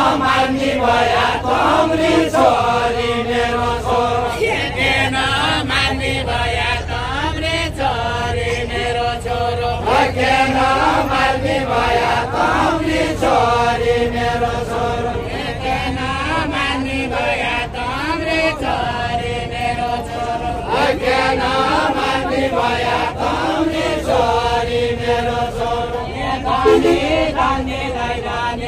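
Nepali deuda folk singing: voices chanting a verse in long, repeating melodic phrases, with one steady tone held underneath.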